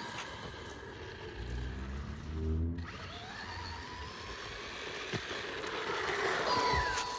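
Brushless electric motor of an RC monster truck whining, rising in pitch as it speeds up and falling away again near the end, with a brief break near the middle.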